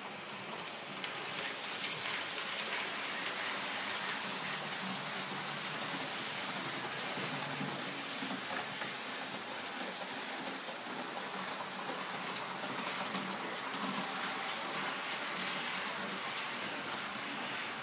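Model trains running on the layout's track: a steady rolling rush of metal wheels on rails with a faint motor hum underneath, picking up about a second in.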